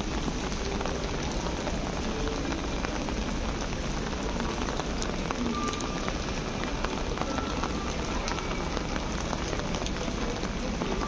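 Steady rain falling on a city street: a dense, even hiss with many small drop ticks.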